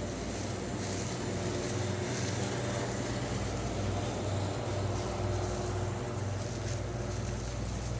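Steady low mechanical hum with a faint background hiss.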